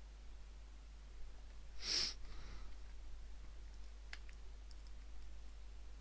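A short breath close to the microphone about two seconds in, then a few faint computer mouse clicks, over a low steady hum.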